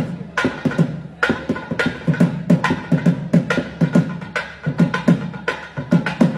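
Thavil drum playing a fast rhythmic passage alone, in sharp strokes several times a second, each with a deep thud and a bright ring.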